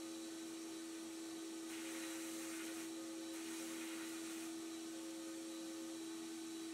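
Abrasive blast cabinet running, with a steady motor hum under a constant hiss of air and grit from the blast gun. The hiss grows louder twice, a little under two seconds in and again at about three and a half seconds, as small toy parts are blasted.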